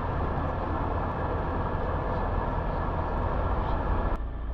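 Ultralight aircraft engine running steadily, heard from inside the open cockpit while the aircraft rolls on the ground, with a low hum under a wide rushing noise. About four seconds in, the rushing noise drops suddenly and the low hum goes on.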